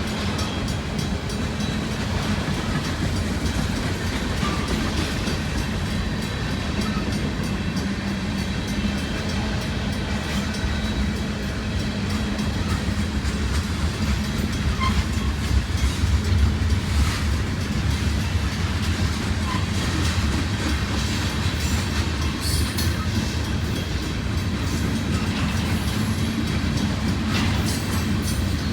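Freight train rolling past, its railcars making a steady low rumble that swells about halfway through, with sharper clicks and rattles near the end.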